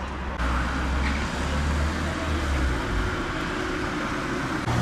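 Steady outdoor background noise, a low rumble under an even hiss, that gets louder abruptly about half a second in.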